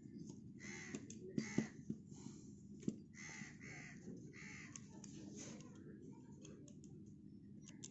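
Faint bird calls: a run of short repeated calls that thin out after about six seconds.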